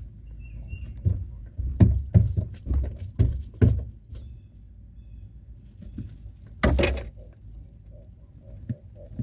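Clattering and knocking with a light metallic jingle as a freshly landed small channel catfish and the fishing tackle are handled: a run of knocks from about one to four seconds in, and another loud clatter near seven seconds.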